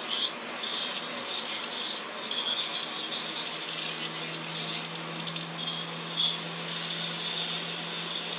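The sound track of a YouTube video playing through a Doogee X5 smartphone's speaker: a high, flickering rasp, with a steady low hum that comes in about four seconds in.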